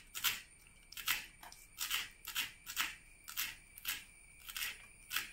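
Kitchen knife chopping fresh coriander leaves on a plastic cutting board, a sharp knock of the blade on the board about twice a second.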